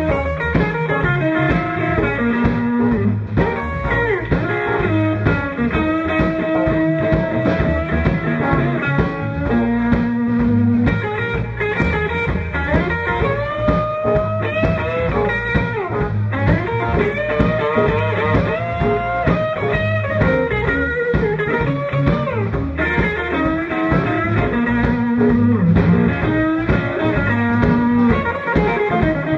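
Live blues band playing through amplifiers: electric guitar carrying a lead line of held and bent notes over electric bass and a drum kit.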